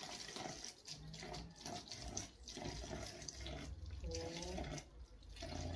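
Water being poured from a plastic jug into an empty plastic drinks bottle: a steady trickling splash of liquid filling the bottle.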